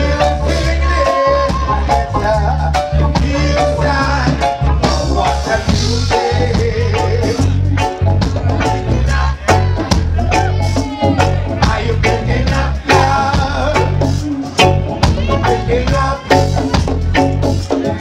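Live reggae band playing: a heavy, steady bass line and drums with congas, and a lead vocal over the top.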